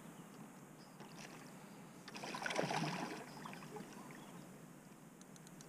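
A hooked river carp splashing at the water's surface: one short burst of splashing about two seconds in, lasting about a second, over faint steady water noise, with a few light ticks near the end.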